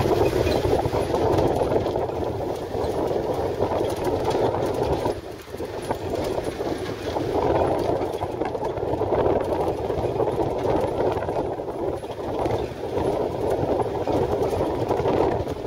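Open-topped desert safari jeep driving over a rough dirt track, heard from on board: a steady rumble of engine and road noise with jolting and rattling, easing briefly about five seconds in.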